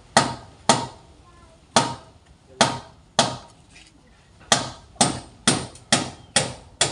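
Hammer blows, about eleven sharp strikes at an uneven pace, each ringing briefly.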